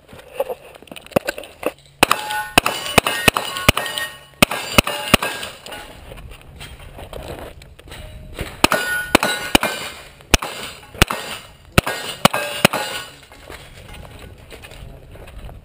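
Quick strings of 9mm shots from an AR-15-style carbine, each string answered by the clang of steel targets ringing, with short pauses between strings.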